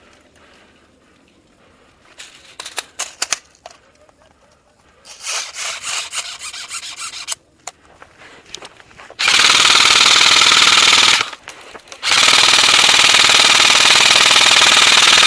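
Airsoft rifle firing on full auto close to the microphone: a continuous rattle lasting about two seconds that begins about nine seconds in, then after a short break a longer burst of about five seconds. Fainter, shorter clattering bursts come earlier.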